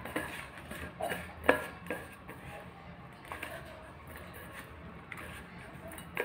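Hand scraping crushed peanut and jaggery mixture around a steel bowl, with several sharp taps of fingers against the metal, the loudest about one and a half seconds in.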